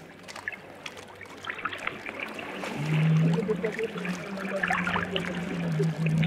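Sea water lapping and splashing against a wooden fishing boat, with small drips and trickles. A low steady hum runs underneath and grows louder about three seconds in.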